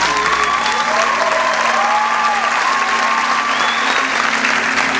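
Audience applauding, with drawn-out rising-and-falling cheering calls over the clapping.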